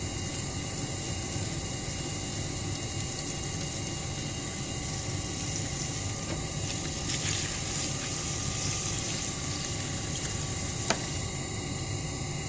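Electric potter's wheel running steadily with a motor hum, and wet clay and water swishing under the hands as the spinning form is collared in. A single sharp click about eleven seconds in.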